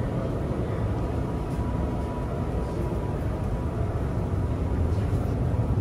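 Steady low roar of storm wind and heavy seas heard from inside a ship's bridge, with a faint steady high tone above it.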